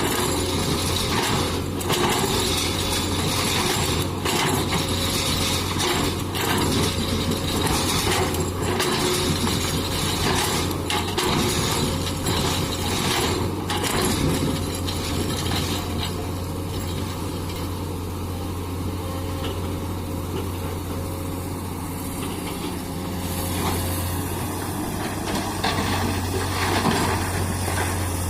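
Komatsu PC200 hydraulic excavator's diesel engine running with a steady low drone, with repeated sharp knocks and clinks during the first half that thin out after about halfway.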